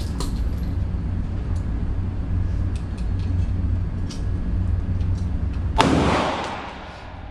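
A steady low hum, then about six seconds in a single pistol shot indoors, its report ringing on and dying away over about a second.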